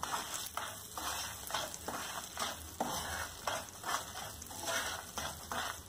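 Wooden spatula stirring semolina roasted in ghee, with chopped nuts, in a frying pan: a quick series of scrapes against the pan, about two or three a second, over the sizzle of the hot ghee.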